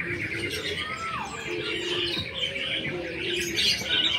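A chorus of many small caged birds chirping without pause. A single whistled note slides down about a second in, and lower drawn-out notes sound beneath.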